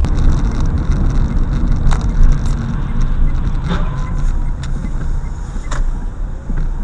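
Car driving on a wet road, heard from inside the cabin: steady engine and tyre rumble, with a short click about every two seconds.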